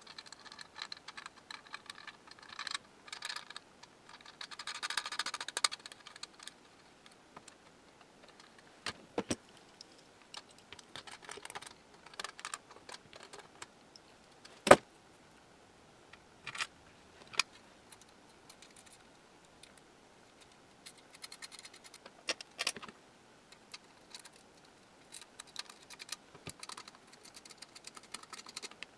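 Small metal hardware (screws, nuts, washers and fittings) clinking and rattling as it is handled and fitted to a metal radio panel, in scattered short clicks, with a busier stretch of rattling a few seconds in and one sharp click about halfway through.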